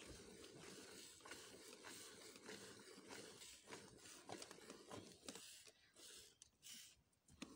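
Faint hand milking of a cow: short repeated squirts of milk from the teats hissing into a steel pail, two or three a second, softer near the end.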